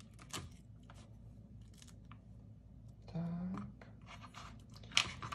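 Thin metal cookie cutters clicking and tapping against a plastic craft mat as they are pressed into and lifted out of soft self-hardening modelling compound: a run of small clicks, with a sharper click near the end.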